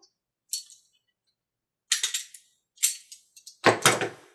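Small plastic parts and packaging handled by hand: four short bursts of crinkling and rattling, the last and loudest with a low knock.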